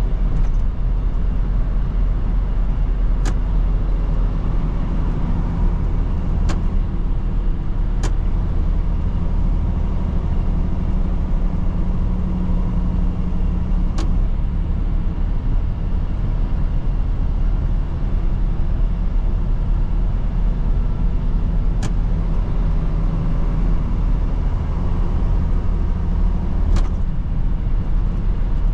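Mercedes-Benz Atego 1024 truck's diesel engine running under way, a steady low rumble whose pitch shifts a few times as the engine speed changes. Several sharp clicks or knocks come at irregular moments.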